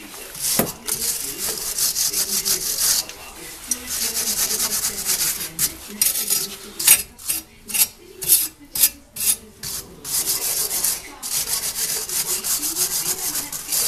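Rasping, scrubbing strokes of hand abrasive work on a brake part. Long runs of scrubbing alternate with a spell of short, quick separate strokes about two a second in the middle.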